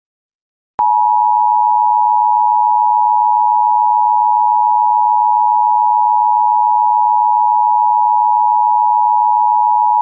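Emergency Alert System attention signal: a loud, steady two-tone beep just under 1 kHz (the 853 and 960 Hz pair). It starts about a second in and tells that an alert message is about to follow.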